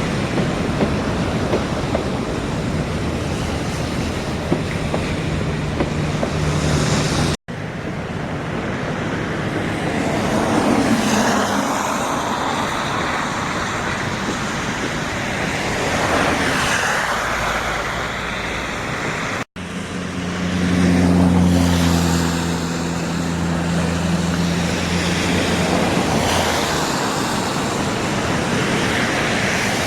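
Steady outdoor vehicle rumble, broken by two abrupt cuts; after the second cut a low engine drone comes in and holds for several seconds.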